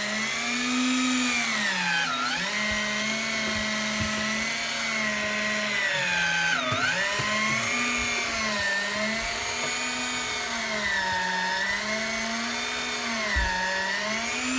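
Electric deep-sea fishing reel winding in line under a heavy load, a steady motor whine whose pitch keeps rising and falling as the fish pulls against it, dipping sharply twice, about two seconds and almost seven seconds in. The fish on the line is a grouper of around 20 kg.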